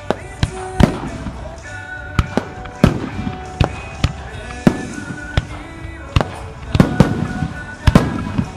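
Aerial firework shells bursting in quick, irregular succession, about two sharp bangs a second, each trailing off in an echo.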